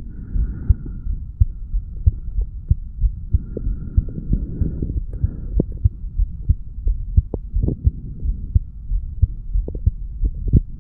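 Human heartbeat recorded at the chest over the mitral valve area: a steady run of low, dull thumps over a constant low hum, the heart beating after weight training.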